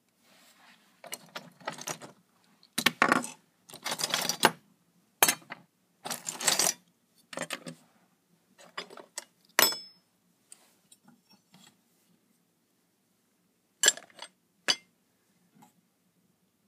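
Scale-model parts clattering and clinking as they are handled and shifted about: a run of rattling bursts through the first ten seconds or so, then a few separate sharp clicks near the end.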